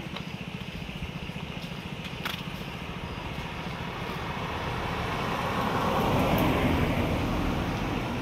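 Vehicle engine idling with a fast, even throb. From about four seconds in, a rushing noise swells and then eases off near the end.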